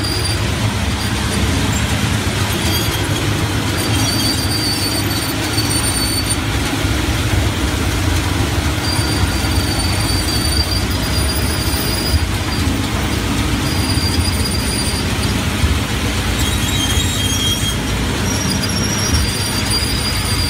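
Low-speed plastic shredder running: a steady, loud low rumble, with brief high-pitched squeals coming and going every few seconds.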